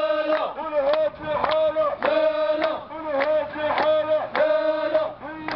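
Protesters chanting slogans in rhythmic unison, men's voices repeating short phrases on a steady beat.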